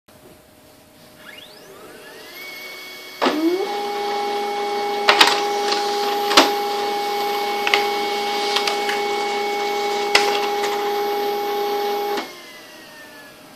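Samsung ML-1610 mono laser printer printing a page. It spins up with a rising whine, then about three seconds in starts running with a steady multi-tone hum and a few sharp clicks as the paper feeds through. It stops about twelve seconds in and winds down with a falling whine.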